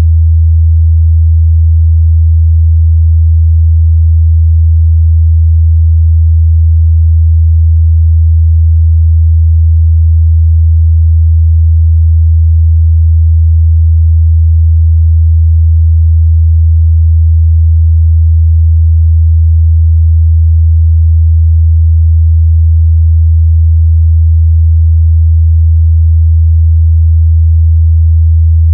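A continuous 81 Hz sine test tone, a steady low hum that holds the same pitch and level throughout.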